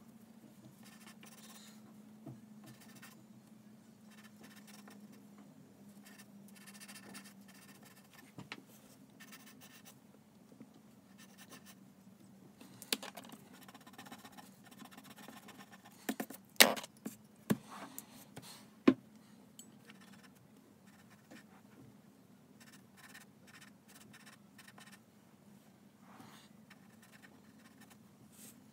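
Graphite pencil scratching on drawing paper in quick sketching strokes. Around the middle it gives way to a pen-style eraser rubbing on the sheet, with a few sharp knocks, the loudest about two thirds of the way through. A faint low hum sits under the first half.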